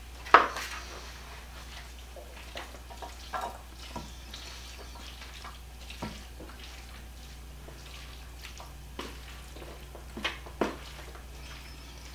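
A wooden spoon scraping a thick, wet pasta casserole mixture out of a mixing bowl into a glass baking dish: scattered knocks and taps of spoon and bowl, the sharpest about half a second in, with soft wet slides and plops of the mixture.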